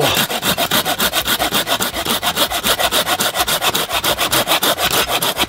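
Shark Saw 180 mm folding pull saw cutting through a hardwood branch in fast, even back-and-forth strokes, about six a second.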